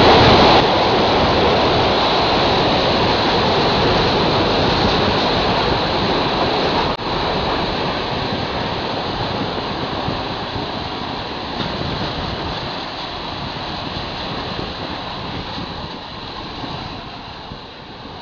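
Wind rushing past an open carriage window together with the rolling noise of a moving passenger train. It grows gradually quieter.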